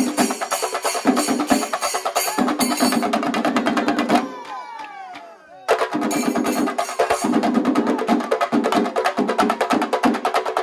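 Shinkarimelam ensemble playing: rapid chenda drum strokes with ilathalam cymbals ringing over them. About four seconds in the drumming drops out for a second and a half, leaving only falling, sliding tones, then it comes back in suddenly.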